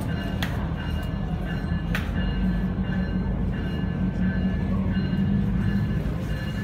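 Coupled diesel-electric locomotives running as they pull away, a steady low engine rumble that swells slightly midway, with a locomotive bell ringing in a repeating pattern above it. A couple of sharp knocks come about half a second and two seconds in.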